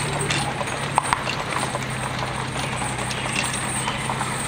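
Towed pirate-ship float on its trailer rolling along: a steady low hum from the towing vehicle under a rumbling noise, with scattered clicks and knocks from the load and trailer, two sharp ones about a second in.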